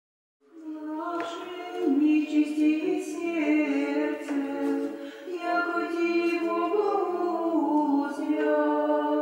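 Unaccompanied choir singing a slow Orthodox church chant in held chords, mostly high voices, starting about half a second in.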